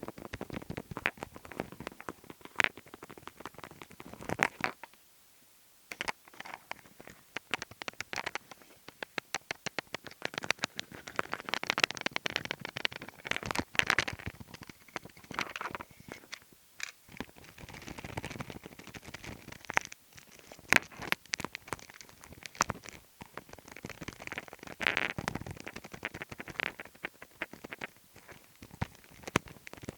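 ASMR fingertip tapping close to the microphone, a rapid, irregular run of sharp taps with some scratchy rubbing, pausing briefly about five seconds in.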